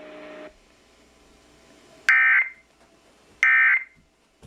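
Emergency Alert System end-of-message tones: short, buzzy digital data bursts, two of them about 1.3 s apart, the SAME code that closes a broadcast weather warning. Before them a low hum cuts off about half a second in.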